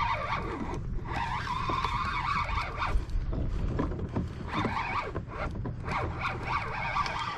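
Spinning fishing reel being cranked to bring in a hooked fish, with a whir from the reel and line that wavers in pitch and breaks off briefly a few times. A steady low rumble of wind on the microphone runs underneath.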